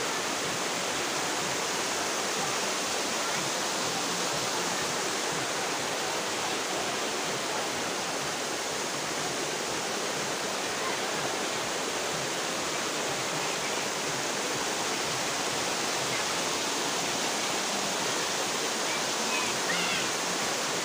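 Small waterfall cascading over rocks, a steady, unbroken rush of falling water.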